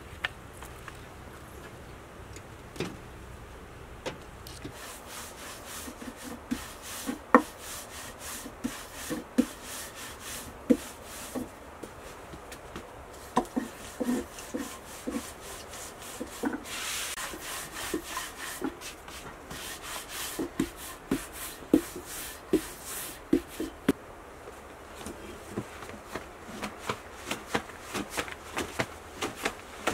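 A wooden rolling pin rolling out lavash dough on a floured wooden board: rubbing with irregular knocks of wood on wood. Near the end, a quicker run of light taps as the thin dough is handled over a cloth cushion.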